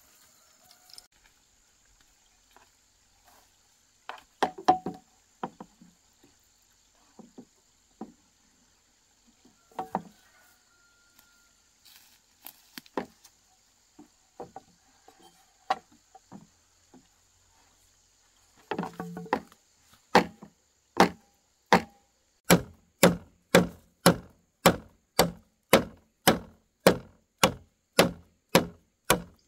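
Blows of a tool on wood: scattered knocks at first, then steady chopping at about two strokes a second from about two-thirds of the way in.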